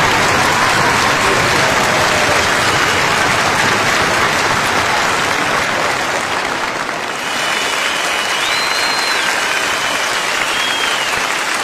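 Crowd applause: dense, steady clapping that dips briefly about seven seconds in, then resumes with high whistles over it.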